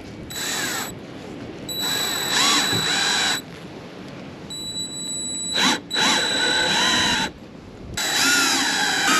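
Power drill driving screws into pre-drilled holes, run in about five short bursts with pauses between, the motor's whine dipping and rising in pitch within each burst.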